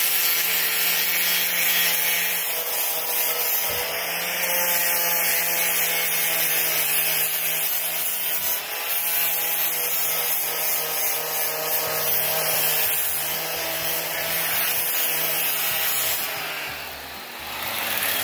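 Angle grinder running and grinding rust off the rusty metal brake plate of a Massey Ferguson 165 tractor, a steady whine with harsh grinding. Near the end the sound drops and its pitch sags briefly.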